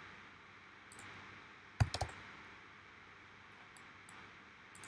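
A cluster of two or three sharp clicks from computer input (mouse buttons or keys) about two seconds in, with a fainter click or two around it, over a faint steady room hiss.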